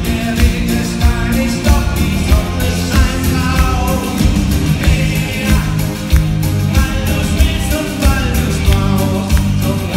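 Live rock band playing: acoustic and electric guitars, keyboard and drums keeping a steady beat, with a lead voice singing.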